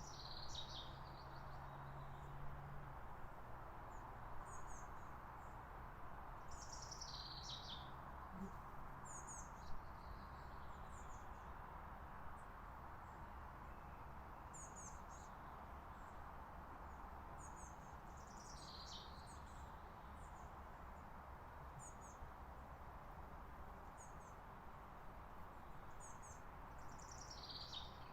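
Birds calling faintly in short, high-pitched bursts every few seconds, some falling in pitch, over a steady low background hum.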